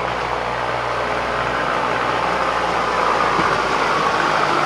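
A small boxy passenger vehicle approaching up a narrow lane, its motor running with a steady low hum and growing louder as it draws near about three seconds in.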